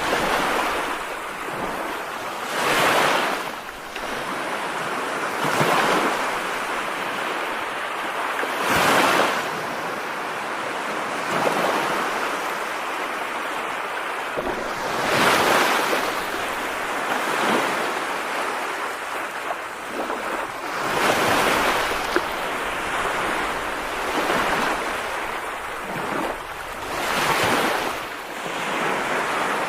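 Continuous rushing noise of water and wind, a steady hiss that swells and eases every few seconds.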